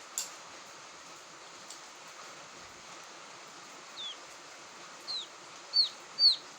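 Quail chick calling: four short, high, downward-sliding peeps from about four seconds in, growing louder, over a steady hiss.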